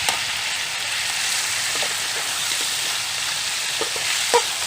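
Pork spare ribs and ginger sizzling in hot oil in a pan as they are stir-fried. The spatula knocks against the pan a few times, loudest near the end.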